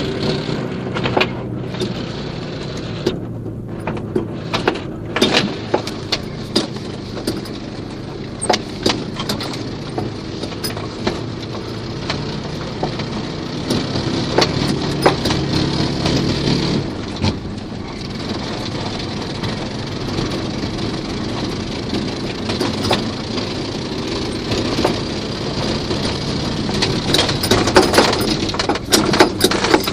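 Small single-cylinder four-stroke walk-behind tractor engine of 6.5 hp, fitted in a VAZ 2109, running steadily, with frequent short knocks and rattles over it.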